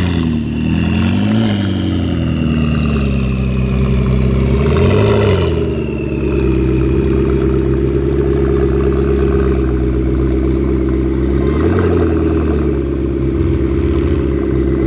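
McLaren twin-turbo V8 idling, blipped three times in short revs that rise and fall quickly.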